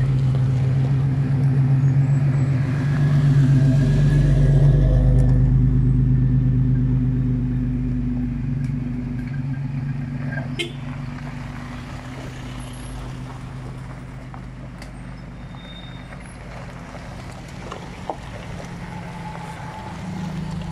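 Off-road 4x4s driving slowly one after another along a gravel forest track, their engines running steadily. The engine sound is loudest in the first several seconds, fades as the vehicles pass, and swells again near the end as another one comes close, with a sharp click about ten seconds in.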